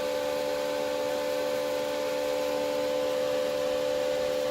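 Power Jack inverter's cooling fan running steadily, a constant hum of a few steady tones over a hiss of moving air. The fan stays on continuously even though the room is not hot.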